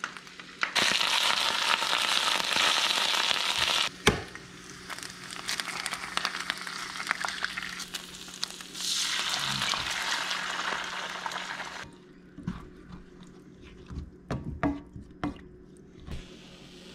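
Egg whites and spinach sizzling in a hot stainless steel frying pan, in loud stretches that start and stop abruptly, then a spatula scraping and tapping in the pan during the last few seconds. A steady low hum runs underneath.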